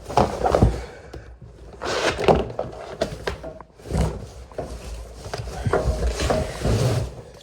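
Rummaging through a box of belongings: items knocked, shifted and set down, with thunks and rustling in several bouts.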